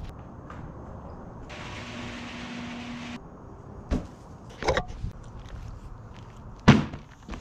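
Steady low outdoor background hum, with a hiss and low hum that start abruptly about a second and a half in and stop just as suddenly under two seconds later. Then a few short knocks and scuffs of someone moving about on a pebbled yard, the sharpest near the end.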